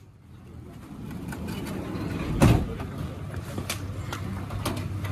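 Outdoor commotion of people walking and talking around a van, with a vehicle engine running low underneath and one loud thump about halfway through.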